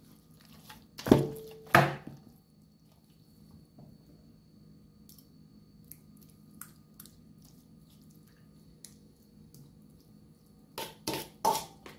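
A metal spoon knocking against a stainless steel mixing bowl twice about a second in, the first knock ringing briefly. Faint clicks follow while seasoning is spooned over raw pork, and a quick cluster of knocks comes near the end.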